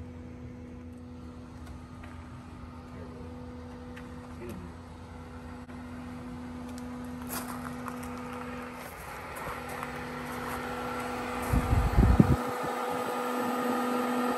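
Swimming-pool pump running with a steady electric hum while water rushes through the plumbing, the rush growing louder in the second half. A few heavy low thumps about twelve seconds in.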